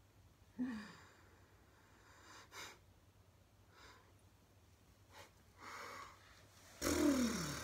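A woman's wordless breathing and sighs: a short falling sigh about half a second in, a few faint breaths, then a louder, longer groan that slides down in pitch near the end.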